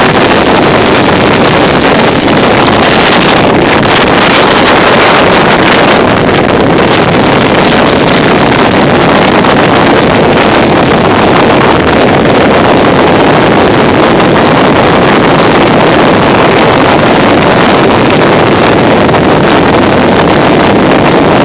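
Loud, steady wind roar on the microphone over motorcycle engines running at road speed in a group ride.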